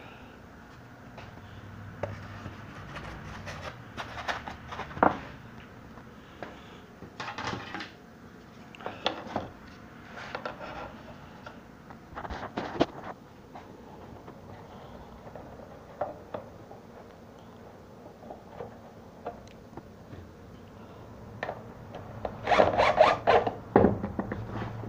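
Wooden boards and strips being handled and set onto a wooden beehive bottom-board frame: scattered knocks, taps and scraping, with a louder, busier stretch of clattering near the end.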